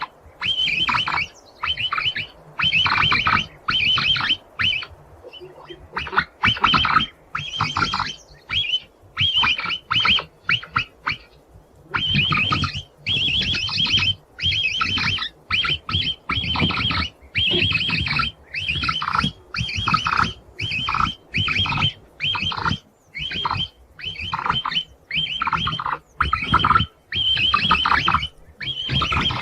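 Capybara giving a long series of short, high-pitched squeaking calls, roughly one a second, with a couple of brief pauses.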